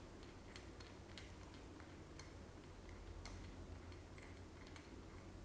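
Faint, irregular small clicks and ticks over near silence, from a small cap being turned by hand on a compressor's pressure-regulating valve.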